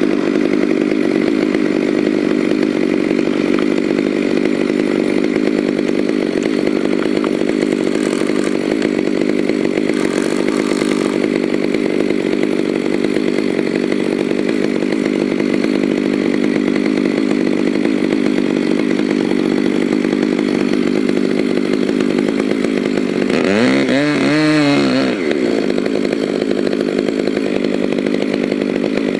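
Ported Stihl 500i fuel-injected two-stroke chainsaw running steadily, with a brief rise and fall in pitch about 24 seconds in.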